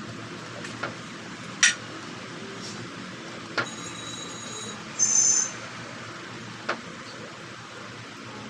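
A few sharp clicks and clinks of hard objects over a steady low room hum, with a brief high-pitched ringing clink about five seconds in, the loudest moment.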